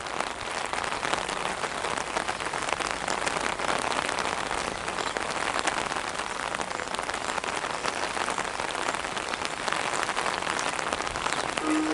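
Steady rain falling, a dense hiss made of countless small drop ticks.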